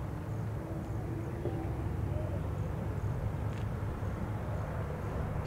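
Boeing B-17G Flying Fortress on landing approach, its four Wright R-1820 Cyclone radial engines giving a steady low drone.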